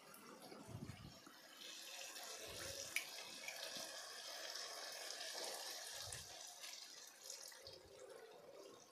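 Cornflour slurry poured from a small steel bowl into a pan of simmering sauce: a faint, steady liquid pouring hiss that lasts several seconds, with a few soft low bumps.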